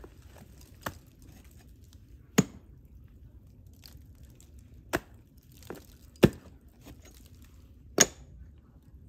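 Ice axe picks struck into thin ice with short swings, the tools choked up at the upper pommel: about five sharp chops, a second or two apart, with a few fainter taps between them.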